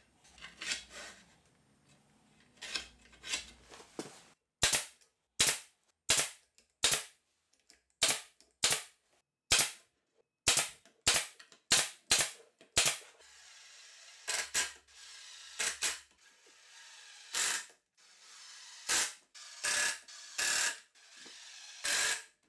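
A Porter-Cable brad nailer firing nails into a plywood block: a string of sharp shots, roughly one or two a second, after some faint handling and scraping at first. About halfway through it gives way to a cordless drill-driver driving pocket-hole screws into the drawer runners in several short runs, with a few more sharp clicks among them.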